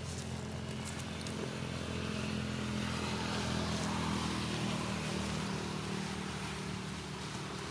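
A motor vehicle's engine running with a steady low hum that grows louder toward the middle and then fades, as of a vehicle passing by.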